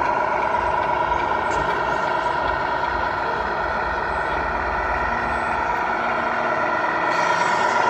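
Radio-controlled Tatra 815 6x6 model truck running, a steady whine with several constant pitches.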